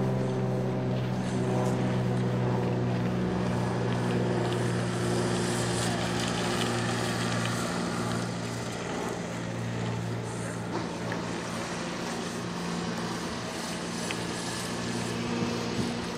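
A steady low mechanical drone made of several even tones, strongest at the start, fading through the middle and swelling again near the end, over a wash of outdoor background noise.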